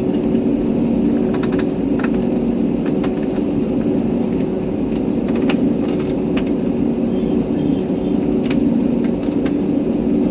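Steady drone inside a passenger aircraft cabin, engines and airflow running evenly with a low hum, with scattered light clicks.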